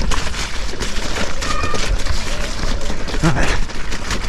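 Mountain bike descending a muddy singletrack: tyres rolling through mud and puddles and the bike rattling over rough ground, with a brief squeal about a second and a half in.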